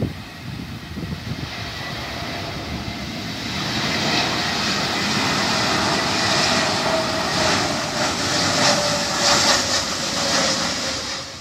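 Airbus A321neo jet airliner on final approach, passing low overhead: its Pratt & Whitney geared turbofan engines rumble and hiss, growing louder about three seconds in. A whine runs through the sound and slowly falls in pitch as the plane goes by.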